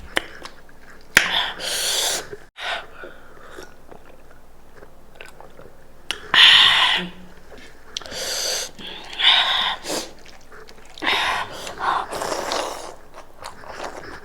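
Close-miked eating of goat meat: chewing in a series of short, noisy bursts with small clicks between them.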